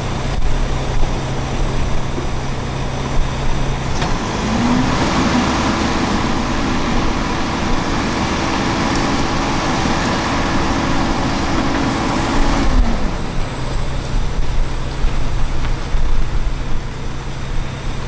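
Diesel engine of road-paving machinery running at idle, then revving up about four seconds in. It holds a higher, steady pitch for about eight seconds before dropping back to idle.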